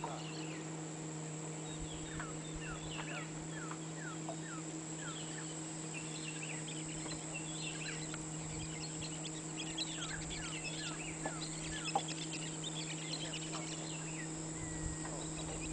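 Outdoor soundscape of many birds calling: repeated short falling chirps and a busy chorus of calls, over a steady high insect drone and a steady low hum.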